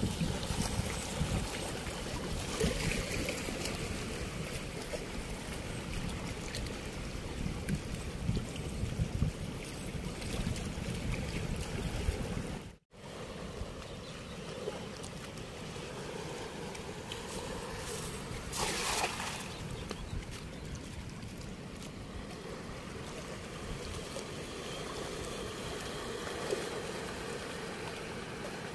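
Floodwater rushing steadily through a barrage sluice gate, with wind rumbling on the microphone; the sound drops out for a moment about thirteen seconds in, and there is a brief louder rush about nineteen seconds in.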